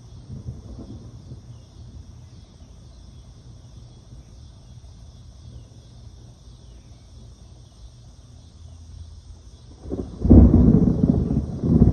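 Thunder rumbling low and faint, then a much louder roll of thunder starting about ten seconds in.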